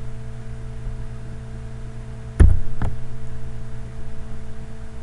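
Steady electrical hum on the microphone line, with two sharp clicks about half a second apart a little past halfway through.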